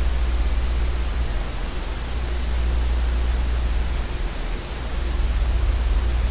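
Steady hiss with a low hum underneath: the background noise of the recording microphone, with no other sound.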